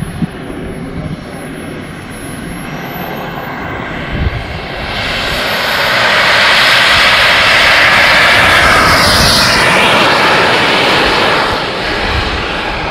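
Radio-controlled model airplane's engine running at power on its takeoff run. It grows louder about five seconds in, stays loudest as the plane passes, and eases off near the end as it climbs away.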